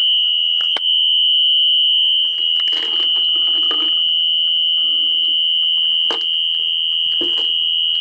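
Function generator sounding a continuous, steady, high-pitched electronic tone that imitates a System Sensor SpectraLert Classic fire alarm horn. A few faint knocks and rustles sit under the tone.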